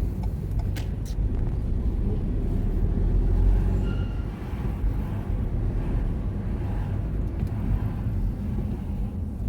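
Car driving in city traffic, heard from inside the cabin: a steady low rumble of engine and tyres, with two sharp clicks about a second in.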